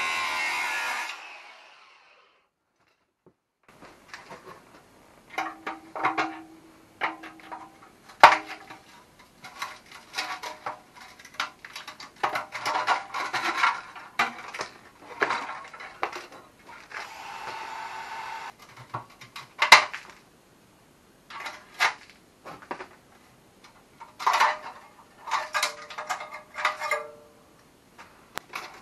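An angle grinder cutting into the steel shell of the Yamaha Grizzly 660's old stock muffler for about a second, then spinning down. After a short pause, a long run of metal clanks, scrapes and clinks, with some sharp ringing knocks, as the muffler and hand tools are worked on and set down.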